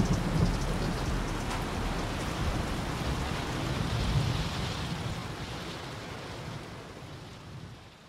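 Closing outro of a slowed-down hip-hop track: a steady wash of hiss over a low rumble, like rain and thunder, fading out to the end of the song.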